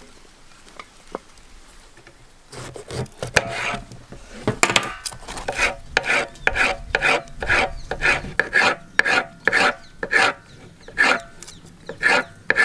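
Kitchen knife slicing bell peppers into strips on a wooden cutting board: a steady run of crisp cuts, about two a second, starting a couple of seconds in.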